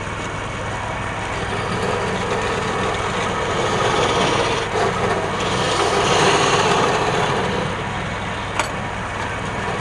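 Wood lathe running with a steady motor hum while a tool scrapes the spinning wood, the scraping growing louder around the middle. A single short click near the end.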